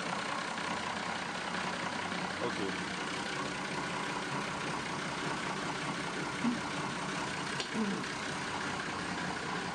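Perkins marine diesel engine idling steadily, shortly after a cold start.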